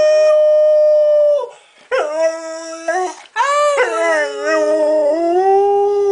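Dog howling with its muzzle raised, in three long drawn-out howls. The first is held on one steady pitch. The second is shorter. The last slides down in pitch and then holds steady.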